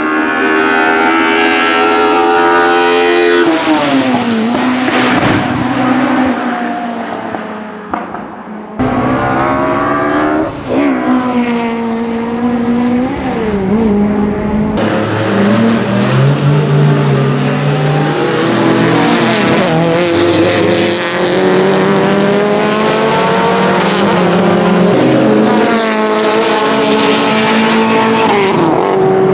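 BMW 2002 racecars' naturally aspirated four-cylinder engines running hard, the pitch climbing under acceleration and dropping on lifts and downshifts. The sound cuts abruptly twice as the recording switches from one car to another.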